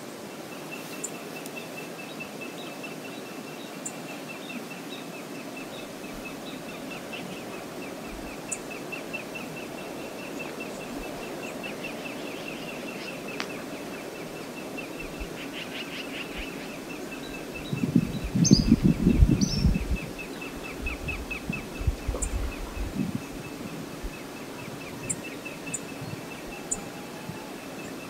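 Outdoor riverside ambience: a steady wash of water and wind with a thin, rapid ticking and a few short bird chirps. About two-thirds through, wind buffets the microphone in a loud, rumbling gust, with a few smaller buffets after it.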